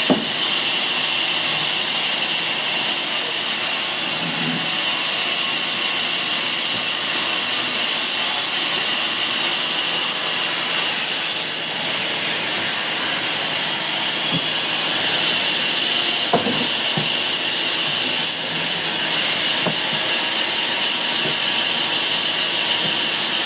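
Sawmill machinery running with a steady, high-pitched hiss, with a few knocks, one about 16 seconds in.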